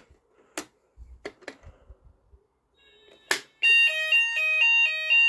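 A few scattered clicks and knocks, then about three and a half seconds in the shed's fire alarm sounders start up loudly with the French fire tone: two pitches alternating about four times a second. This is the shed's response to a fire triggered from the garage's call point.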